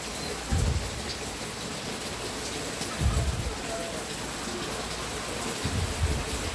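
Heavy rain falling steadily, an even hiss of water, with three brief low rumbles or bumps, about half a second in, at three seconds and near the end.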